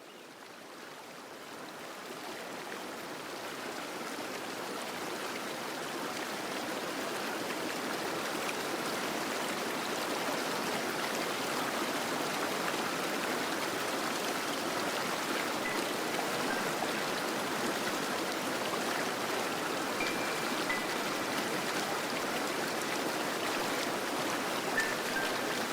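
Fountain water splashing and rushing steadily, fading in over the first several seconds.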